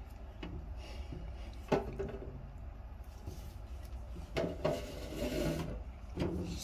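Handling noise from a paper-pulp egg carton of silkworm cocoons being moved about on a table: a sharp tap about two seconds in, then a longer scraping rub a little past the middle, with a few light knocks.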